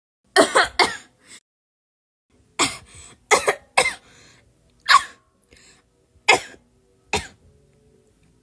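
A girl coughing: a quick run of three coughs near the start, then single, harsh coughs about once a second.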